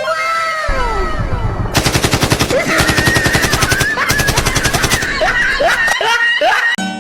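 Fake machine-gun fire: a rapid, continuous burst of automatic-gunfire shots lasting about three seconds. It is preceded by descending whistles and a low rumble, with rising chirps as it ends.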